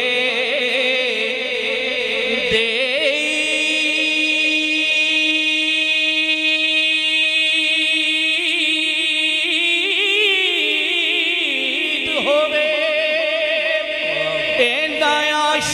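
Male naat reciters singing a Punjabi naat, with one long note held and wavering for several seconds before the melody moves on about two-thirds of the way through.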